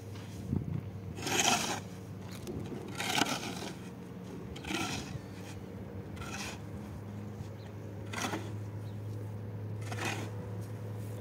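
Scraping in slow, even strokes, about one every second and a half to two seconds, over a steady low hum.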